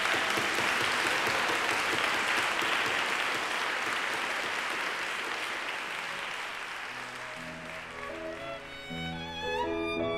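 Audience applauding, slowly dying down; about seven seconds in, instrumental music with held notes fades in.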